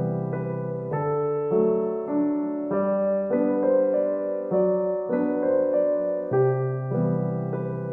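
Background music: soft piano, with notes and chords changing about once a second.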